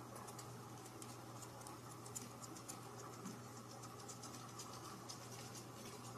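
A kitten's paws and claws scratching and tapping lightly on couch fabric as it bats at a dangling pompom toy: faint, irregular ticks and scratches over a steady low hum.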